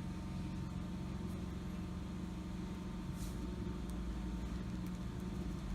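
Steady low background hum with a few even tones, and a faint brief hiss about three seconds in.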